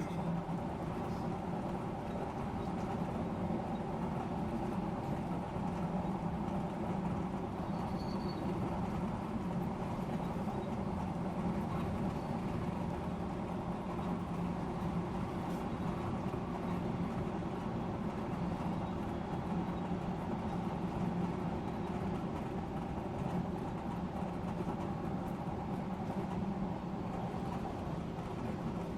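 Odakyu electric express train running steadily at speed, a continuous low rumble of wheels on rails and running gear heard from inside the front car.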